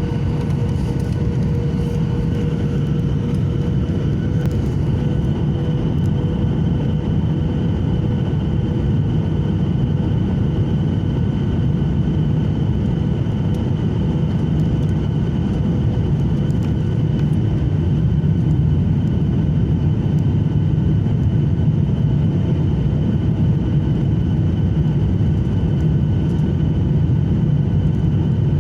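Airplane engines running steadily during a landing, a constant low rumble with a faint high whine.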